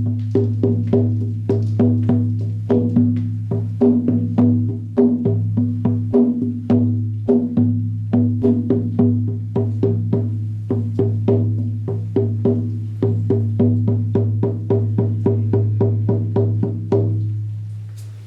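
18-inch buffalo-skin shamanic frame drum struck with a firm beater in a steady beat of about three to four strikes a second, each hit giving a deep ringing boom with a sharper attack. The beating stops about 17 seconds in and the boom rings away.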